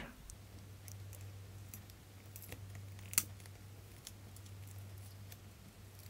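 Fingernails picking and scratching at a strip of black adhesive tape on a laptop's logic board: faint scattered ticks, one louder about three seconds in, over a low steady hum.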